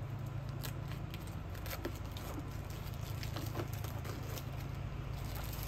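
Packaging being unwrapped by hand from a small bento lunchbox, giving faint scattered crinkles and clicks over a steady low hum.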